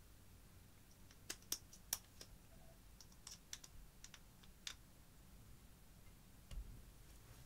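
Faint scattered clicks and taps of a metal spatula against makeup and a glass baking dish as pressed eyeshadow is scraped out of its pan and broken up, with a few sharper clicks between one and two seconds in.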